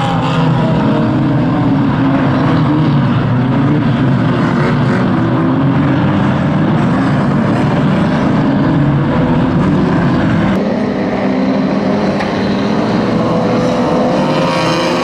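A pack of pre-1980 classic banger race cars' engines revving hard together, the pitch wavering up and down as drivers accelerate and back off. The mix changes abruptly about ten seconds in.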